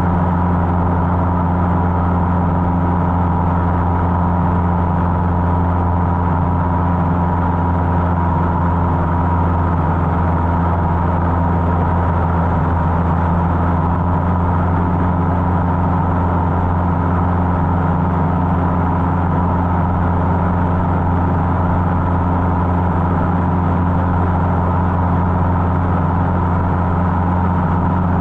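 Cessna 150's Continental O-200 four-cylinder engine and propeller running steadily in flight: an even, unbroken drone with a faint high tone above it.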